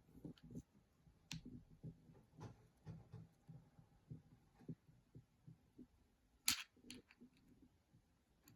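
Faint handling of small 3D-printed plastic model parts being fitted together: soft scattered clicks and taps, with one sharper click about six and a half seconds in.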